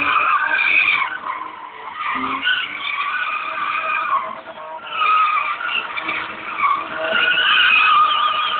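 A BMW's tyres squealing loudly as it drifts, in long wavering screeches that ease briefly about two seconds in and again near the middle, and are strongest near the end.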